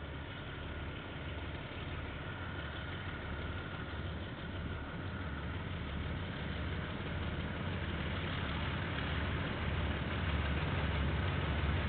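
Diesel locomotive of an approaching KiwiRail train, a low engine rumble growing steadily louder.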